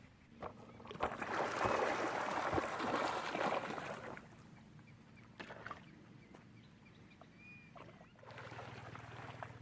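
Water splashing and rushing for about three seconds, then quieter with a few small knocks. Near the end the low, steady hum of an approaching boat's engine starts.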